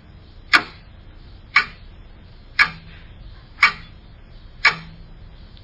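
Countdown-timer ticking sound effect: five sharp ticks, evenly spaced about a second apart.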